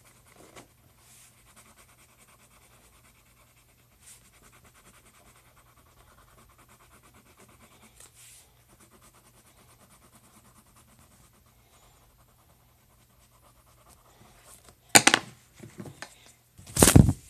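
Faint breathing close to the microphone over quiet pencil scratching on paper, then two loud bumps near the end.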